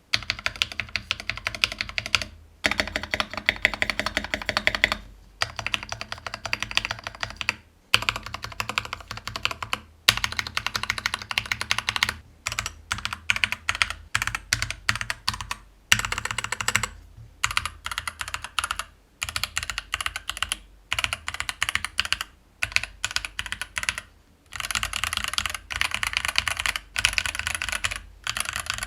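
Typing on a stock Keychron V4 60% mechanical keyboard: rapid keystrokes clacking on unlubed Keychron K Pro switches under PBT keycaps, with factory-lubed screw-in stabilizers. The typing comes in runs of a few seconds, broken by short pauses.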